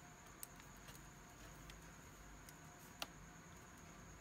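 Near silence, broken by a few faint taps of a stylus on a tablet's glass screen; the sharpest tap comes about three seconds in.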